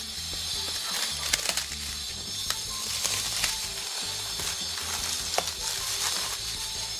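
Clear plastic shrink-wrap crinkling as it is snipped with small scissors and peeled off a cardboard box, with a few sharp clicks and rustles.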